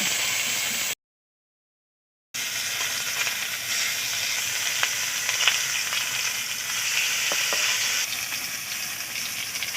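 Dal paturi parcels wrapped in pumpkin leaves sizzling steadily in a little mustard oil in a hot kadai, with a few light crackles. The sound cuts out completely for about a second and a half near the start.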